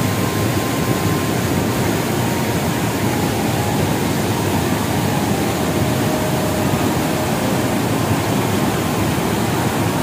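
Large waterfall in heavy flow, white water pouring over rock ledges and churning below, making a steady, unbroken rush.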